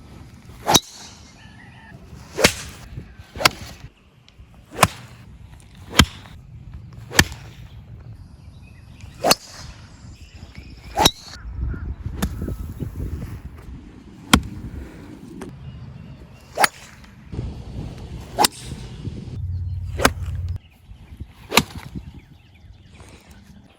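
Golf clubs striking golf balls: a series of sharp, crisp cracks, about a dozen, one every second or two.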